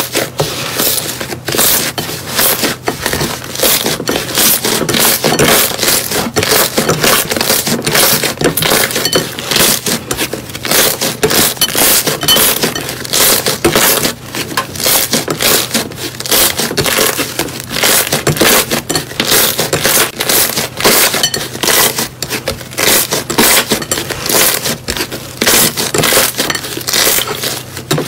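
Thick blue slime being squeezed and kneaded by hand in a glass bowl, giving a dense, uneven run of crackling pops and squelching clicks as air pockets burst.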